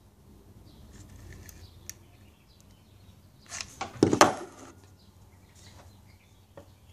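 Small parts handled at a wooden workbench: a short cluster of sharp knocks and clicks about four seconds in, with a few faint ticks and bird chirps around it.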